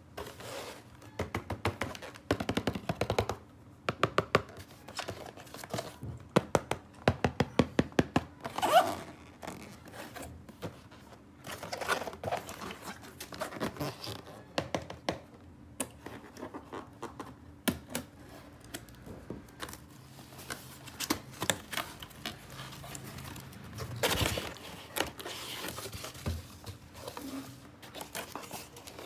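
Plastic toy pieces and packaging being handled: scattered taps, knocks and scrapes with crinkling and rustling. A quick run of sharp clicks comes about a quarter of the way in.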